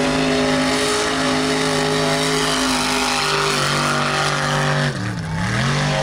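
A racing mud truck's engine running hard at high revs, held nearly steady; about five seconds in the revs drop sharply and climb back.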